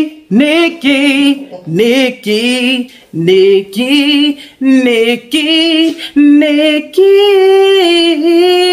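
A woman singing loudly without accompaniment: short wavering phrases with wide vibrato, broken by brief pauses, then a long held note near the end.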